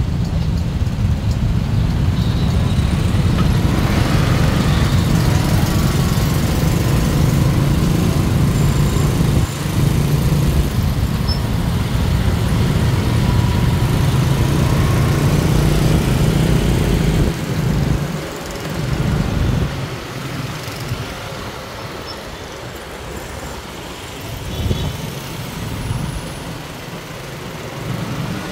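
Street traffic noise, with a motor vehicle's engine running close by as a steady low hum for most of the first two-thirds, then dropping away to quieter traffic.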